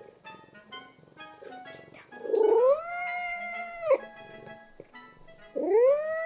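A house cat meowing twice, long drawn-out meows: the first rises in pitch and is then held for over a second, about two seconds in; the second, also rising, starts near the end. Light background music plays underneath.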